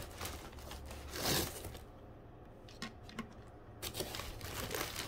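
Quiet handling noise as a dome-topped camping lantern is brought out: a brief rustle about a second in, a couple of soft clicks, and more light rustling and clicking near the end.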